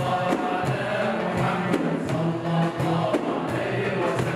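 A male choir singing Islamic devotional inshad (praise of the Prophet) in unison with held notes. Electronic keyboard and frame drums keep a steady beat under the voices.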